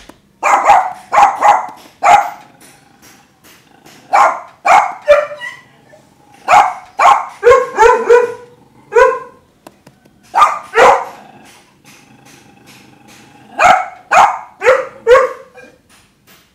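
A dog barking in clusters of two to six sharp barks, with pauses of one to two seconds between the clusters.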